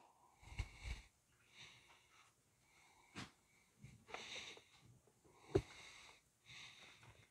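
Electrochemical etcher's pad touched again and again to the stencil on a steel knife blade, each touch giving a short, faint buzzing hiss as the DC current etches the logo, about one every second or two. Two sharp clicks fall in between, the second, a little past halfway, the loudest sound.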